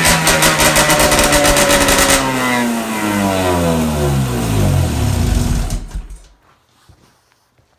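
Snowmobile's two-stroke engine running at high revs, then the revs fall away steadily over several seconds until the sound dies out about six seconds in.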